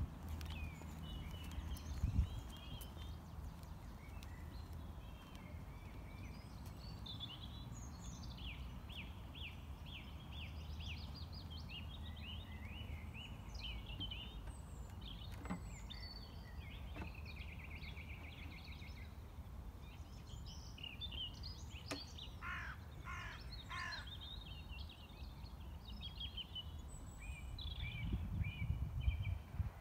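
Songbirds singing and chirping, with a short run of harsher, lower calls about three quarters of the way in, over a steady low rumble of wind on the microphone that grows near the end.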